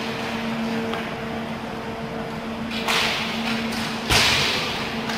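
Two sharp hits from roller hockey play in an indoor rink: one about three seconds in and a louder crack a second later that echoes through the hall. A steady hum sits underneath.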